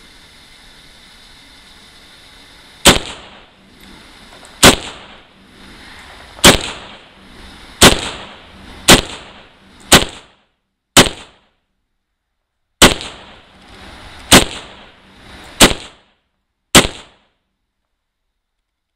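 Zastava M92 PAP, an AK-pattern 7.62x39 firearm, firing eleven semi-automatic shots at an unhurried pace, one every one to two seconds, each a sharp crack with a short echo. The shots start about three seconds in and come steadily without a stoppage, the gun cycling cleanly with its newly fitted UltiMAK gas-tube rail.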